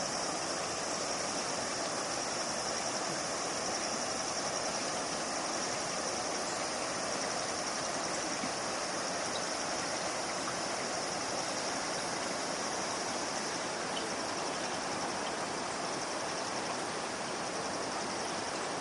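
A river running over a rocky bed, a steady rush, with a constant high-pitched chorus of insects above it.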